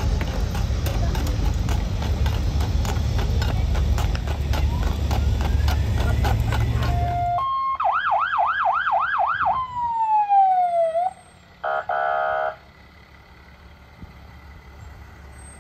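Draft horses' hooves clopping on pavement in a steady beat as a wagon rolls by. Then a fire truck's siren gives a rapid yelp for about two seconds, winds down in a falling wail, and a short horn blast follows, with the truck's engine running underneath.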